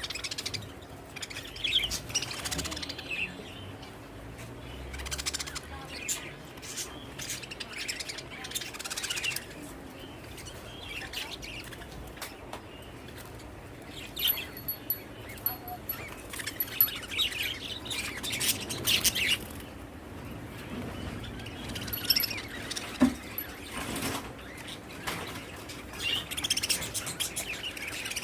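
Small birds chirping and tweeting in irregular bursts, mixed with short clicks and rustles.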